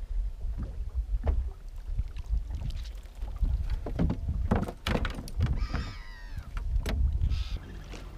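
Water slapping against the hull of a small fishing boat, with irregular knocks and rattles of gear and of the rod and reel as a fish is played on a bent rod. A short run of falling high squeaks comes about six seconds in.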